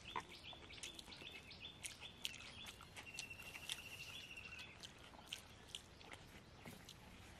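Faint bird chirps in the background, with a rapid, even trilling call for a couple of seconds past the middle, among scattered short clicks.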